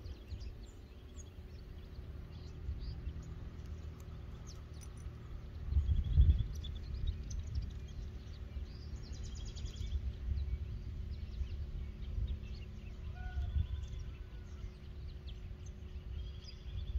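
Outdoor ambience: a low rumble of wind on the microphone, swelling about six seconds in, with birds chirping briefly now and then.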